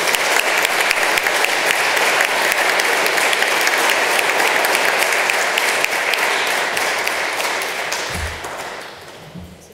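Audience applauding, a dense steady patter of many hands that fades out over the last couple of seconds. There is a short low thump about eight seconds in.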